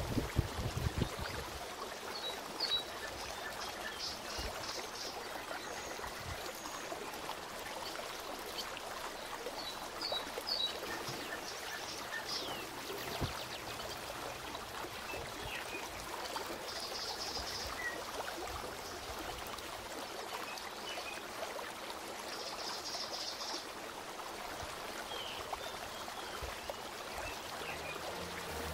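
Steady trickle of running water, with short high bird chirps and a few brief trills now and then.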